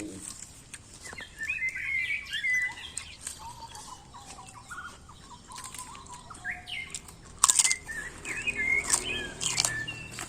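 Small birds chirping and singing in short, twittering phrases, with a few sharp clicks or crunches over them, the loudest about seven and a half seconds in.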